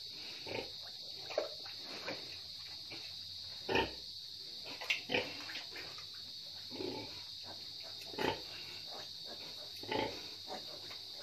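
Pigs grunting in a string of short, separate calls spaced irregularly, about nine in all, over a steady high-pitched hiss.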